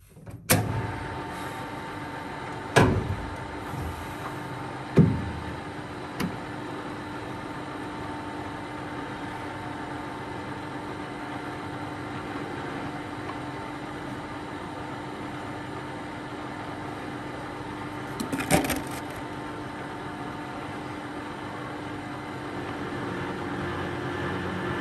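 Metal lathe running with a steady hum, broken by sharp clunks about half a second, three, five and six seconds in and again at about eighteen seconds. Near the end the sound grows as the spindle turns with a knurling wheel set against an aluminium handle.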